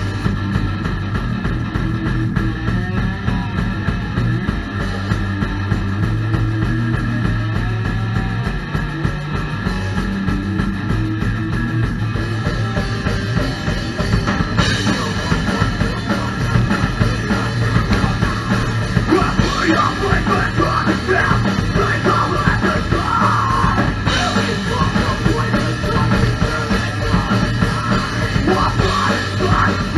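A rock band playing live on electric guitar, bass guitar and drum kit. The sound fills out and grows brighter about halfway through, and shouted vocals join in the last third.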